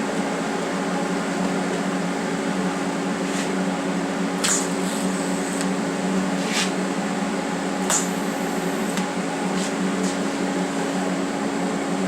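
TIG welder running with a steady electric buzz and hiss from the arc, with sharp ticks every second or two, while welding steel spacers to brackets.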